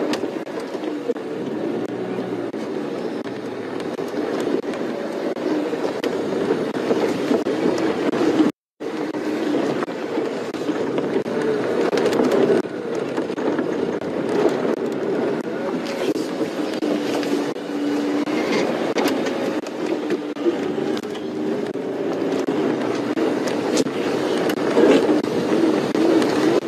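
Safari vehicle's engine running as the vehicle drives slowly, a steady drone with a wavering pitch, with a brief audio dropout about nine seconds in.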